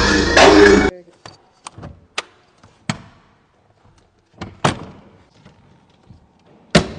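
Loud bass-heavy music stops abruptly about a second in. Then come light clicks and knocks, a heavier thump, and near the end the loudest sound, a car's hatchback tailgate slamming shut.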